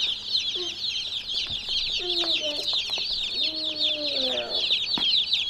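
A flock of Cornish Cross meat chicks peeping all at once, a dense, continuous chorus of short, high, downward-falling chirps.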